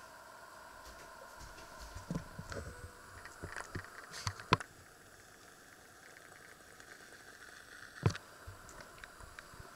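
A few light knocks and clicks over a faint steady background hum: a scattering of small taps about two to four and a half seconds in, then one sharper knock near the end.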